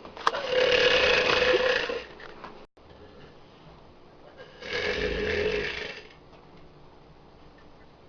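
A girl burping on command: two long, loud belches, the first lasting about a second and a half, the second a shorter one about four and a half seconds in. A brief click comes just before the first.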